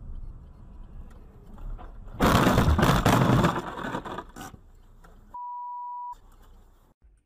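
Car-interior road rumble, then about two seconds in a loud crash impact lasting about two seconds. A second later comes a steady single-tone censor bleep of under a second, with the rest of the audio cut out beneath it.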